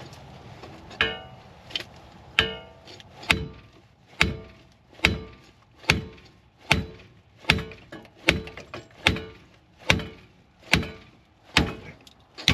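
Heavy three-pound hammer striking steel in steady, evenly paced blows, a little under one a second and about fifteen in all, each with a short metallic ring, starting about a second in. The hammering is meant to jar loose a seized, torch-heated front-end part, which is starting to free up.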